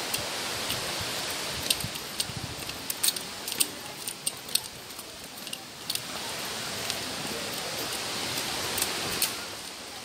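Steady rush of flowing water from a stream or waterfall, with irregular sharp clicks and taps close to the microphone every second or so.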